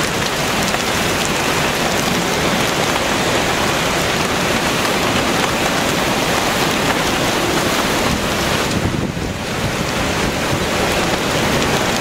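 Severe straight-line wind of a bow echo squall line's downdraft driving heavy rain: a loud, dense, continuous rush of wind and rain, with a brief lull about nine seconds in.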